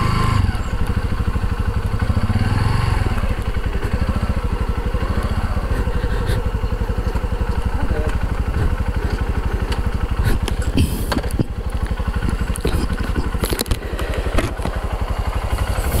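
Small engine running steadily with a fast, even firing pulse, and a few brief clicks over it in the second half.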